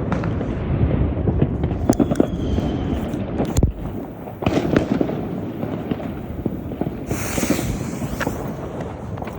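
Argento Pyroshow 2000-A Minerva fireworks going off: a rapid, irregular run of sharp cracks and bangs over crackling, with a hissing burst about seven seconds in.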